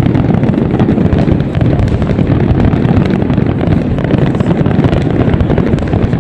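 Dense barrage of fireworks bursting, the overlapping booms merging into a continuous low rumble.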